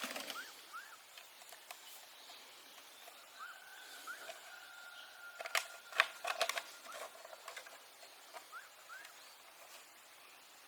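Small birds chirping with short rising calls, one holding a thin steady note for a few seconds. A quick cluster of sharp clicks or knocks about five and a half to six and a half seconds in is the loudest sound.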